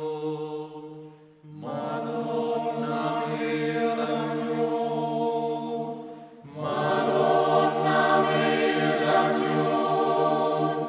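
Mixed choir singing slow, sustained chords in a chant-like style, breaking off briefly between phrases about a second in and again about six seconds in.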